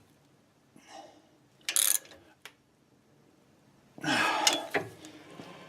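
Ratchet wrench tightening the axle retainer bolts on a classic Ford 8-inch rear end: a short ratcheting burst about two seconds in, a click, then a longer rasping stretch of ratcheting about four seconds in.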